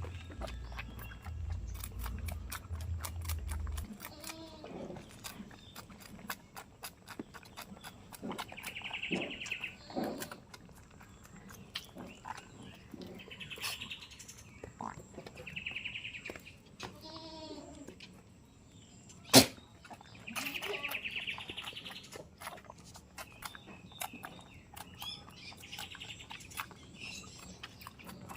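Farm goats bleating now and then, with small birds chirping and many small clicks throughout. A single sharp knock stands out about two-thirds of the way through.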